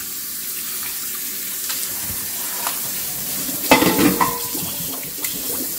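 Tap water running steadily into a stainless steel sink as whole pollock are rinsed under the stream. A few wet knocks and splashes of the fish being handled break through, loudest a little past the middle.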